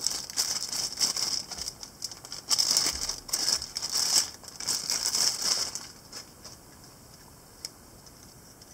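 Thin clear plastic bag crinkling and rustling as a stickerless Megaminx puzzle is worked out of it. The crinkling stops about six seconds in, leaving a few faint clicks.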